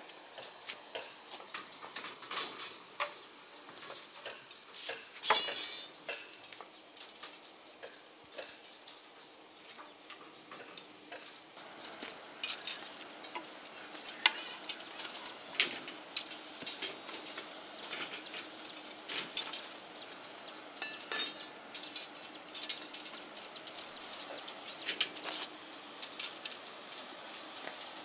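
Irregular metallic clinks and knocks, a few to several a second, with one brief ringing clang about five seconds in.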